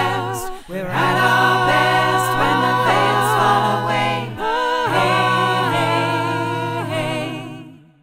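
A cappella vocal music: one woman's voice layered into held chords over a low sustained bass note, with no instruments. The chord breaks off briefly twice and fades out just before the end.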